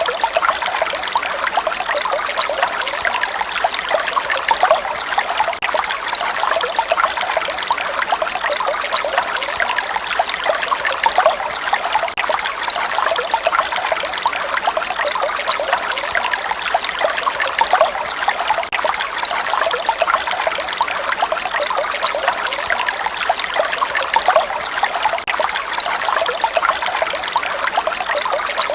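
Running water trickling steadily, with many small gurgles and splashes flickering through a constant rush.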